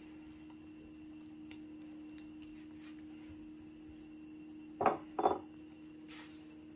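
A steady low hum, with two quick knocks about five seconds in from a silicone spatula against a glass Pyrex baking dish while spreading cooked beans.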